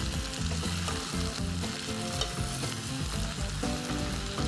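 Chopped onions, carrots, red pepper and tomatoes sizzling in ghee in a pot, stirred with a wooden spoon that gives small knocks against the pan.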